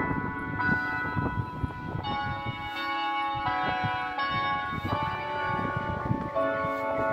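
Church bells ringing, several pitches sounding together and overlapping, with new strokes coming in a little faster than once a second.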